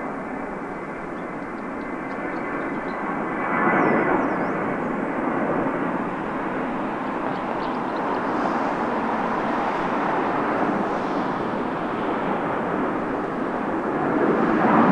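Jet engines of an Airbus A321-231 (IAE V2500 turbofans) running as it departs. The noise is a steady rush that swells about four seconds in and grows louder again near the end.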